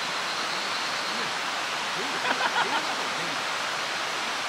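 Steady rushing of a mountain stream, with faint voices low underneath and a brief louder cluster of short sounds just past halfway.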